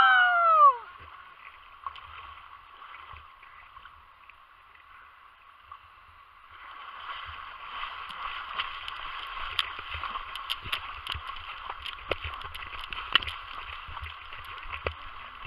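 Surf sloshing and splashing close up as waves wash over a camera held at the water surface, growing busier from about six seconds in with many small sharp splash ticks. A short falling cry at the very start is the loudest sound.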